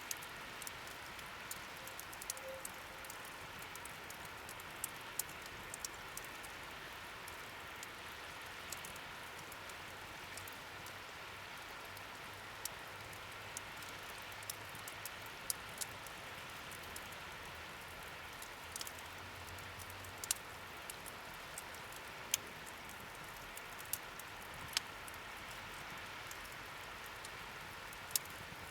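Wood fire burning in a fire stand: a steady hiss with irregular sharp crackles and pops from the burning wood.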